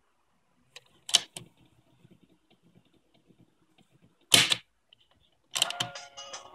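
Plastic piano-key buttons of a Casette Boy portable cassette player clacking as they are pressed: a light click, then two sharp clacks about a second in, and another loud clack past four seconds in, with a faint low rumble in between. Music from the tape starts playing near the end.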